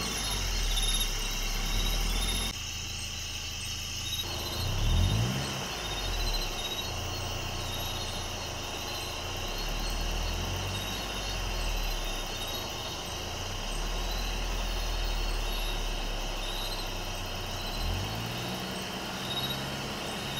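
A vehicle engine idling, its note rising briefly about five seconds in and again near the end, under steady chirping of night insects.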